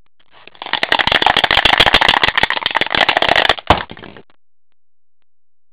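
A die rattling as it is shaken in a clear plastic cup, a rapid clatter of clicks for about three seconds, ending with one sharper knock before it stops.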